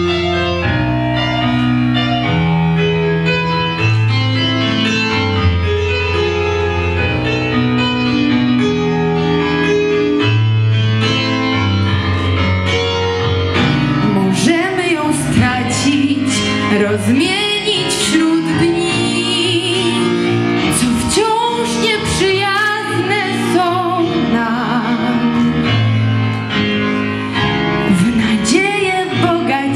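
Solo piano accompaniment playing slow sustained chords, joined about halfway through by a woman's singing voice with vibrato.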